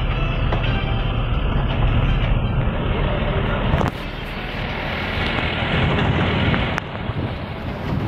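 Engine rumble and road noise of a moving vehicle heard from inside the cabin. About four seconds in, the low rumble drops and a higher hiss comes up.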